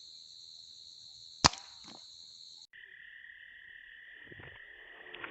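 A single sharp shot from a PCP air rifle about a second and a half in, over a steady high-pitched buzz of insects. Partway through, the buzz drops suddenly to a lower pitch.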